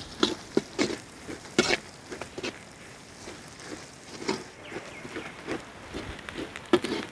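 Perforated steel ladle scraping and knocking against an iron kadai as green chillies, curry leaves and crushed ginger-garlic are stirred in hot coconut oil, in irregular scrapes and knocks over a faint frying sizzle.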